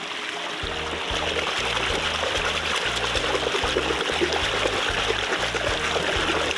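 Shallow stream water rushing and splashing around a hand reaching into the current. Background music with a steady, rhythmic bass line comes in about half a second in.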